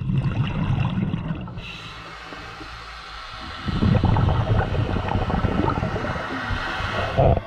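Gurgling bubbles and low rumble of water heard by a camera underwater, in two loud spells with a quieter stretch between.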